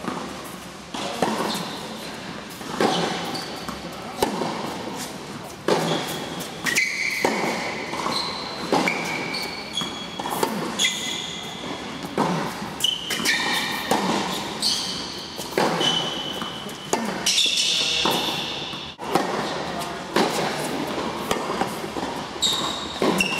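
Tennis rally on an indoor hard court: sharp pops of the ball off the racquets and the court, about one every second, echoing in the large hall. Short high squeaks of tennis shoes on the court come between the shots.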